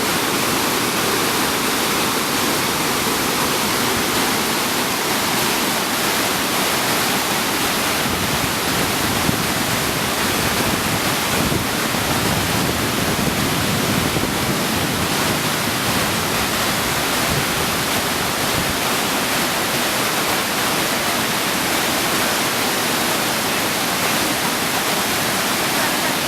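Waterfall cascading, a loud, steady rush of falling water.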